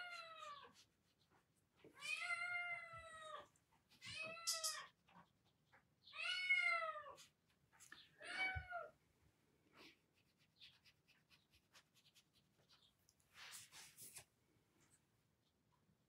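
Domestic cat meowing five times over about nine seconds, each meow under a second and a half, rising then falling in pitch, quiet.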